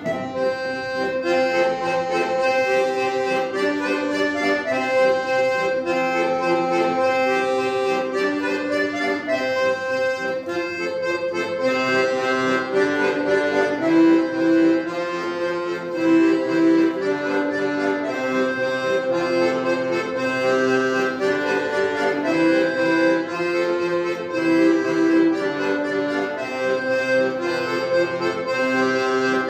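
An accordion trio: three piano accordions playing a piece together, a melody of held notes over sustained chords, at a steady level.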